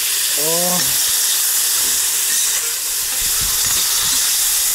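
Cubes of meat frying in hot oil in a cast-iron kazan, a loud steady sizzle, stirred with a long metal slotted spoon that scrapes against the pot now and then.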